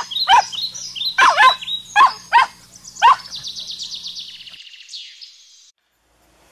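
Animal calls: about six loud calls that each fall in pitch, mixed with high chirps, then a fast high trill that stops near the end.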